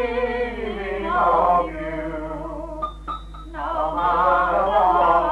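Singing from a 1963 home recording of a family Christmas gathering: a held, wavering melody that breaks off briefly about three seconds in, over a steady low hum.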